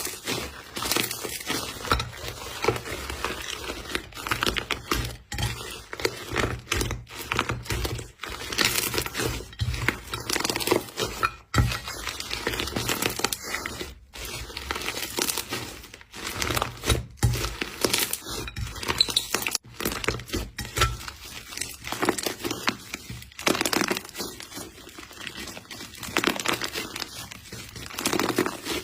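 Slime being squished and pressed by hand, giving a dense, irregular run of crackles and pops with a few brief breaks.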